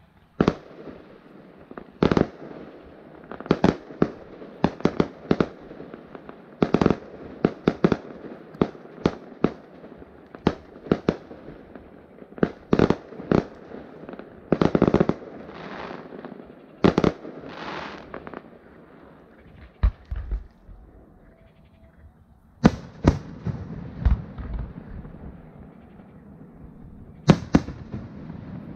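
Fireworks going off: a long, irregular volley of sharp bangs, some followed by crackling, with a short lull about two-thirds of the way through before more bangs.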